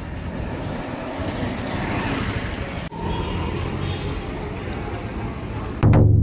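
Steady street traffic noise of a busy town road with auto-rickshaws and cars. Just before the end a loud, low ringing tone sets in suddenly and begins to fade.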